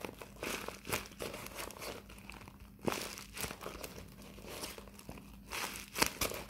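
Homemade paper squishy, paper wrapped in shiny tape, being squeezed and handled, crinkling and crackling in irregular bursts.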